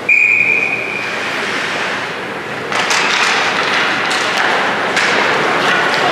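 A referee's whistle blown once, a steady shrill tone lasting about a second. This is followed by general ice-rink noise with scattered thuds and knocks, which gets louder about three seconds in.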